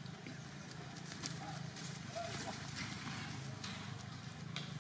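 Outdoor ambience: scattered faint rustles and clicks over a steady low hum, with one sharp click about a second in.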